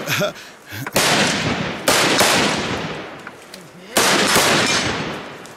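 Several single rifle shots fired from the prone position, unevenly spaced a second or two apart, each with a long fading tail. This is cover fire in a live-fire drill.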